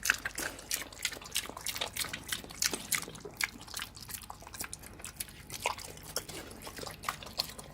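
Domestic pig eating wet slop: quick, irregular wet smacking and slurping clicks, several a second.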